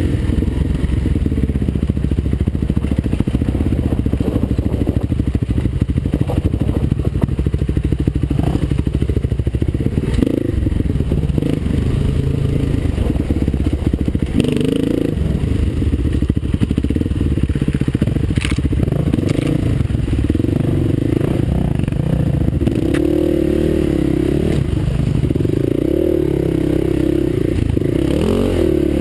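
Kawasaki KLX dirt bike's single-cylinder four-stroke engine running, its revs rising and falling as the rider works the throttle along the trail. Clattering and scraping from the bike bouncing over ruts, with a couple of sharp knocks.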